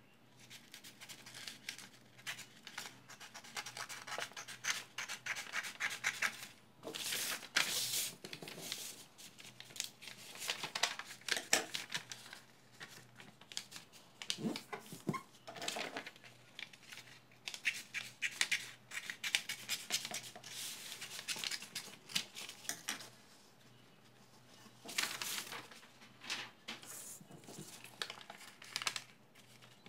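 Scissors snipping through a large sheet of chart paper, then the paper being rubbed, creased and folded flat by hand against a table in irregular bursts.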